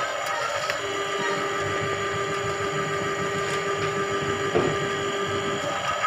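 Motorized drain-cleaning machine running steadily, its coiled spring cable spinning in a blocked drain to clear the clog. A steady mechanical hum carries a held tone that cuts out shortly before the end.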